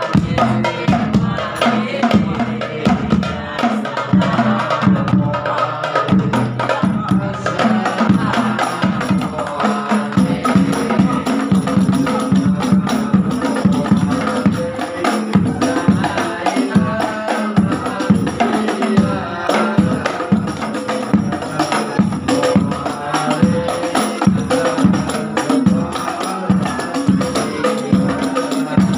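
Rebana frame drums struck by hand, playing a steady, dense rhythm together.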